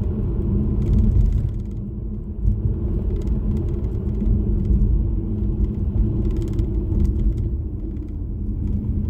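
A car driving, heard from inside the cabin: a steady low rumble of engine and road noise with an engine hum.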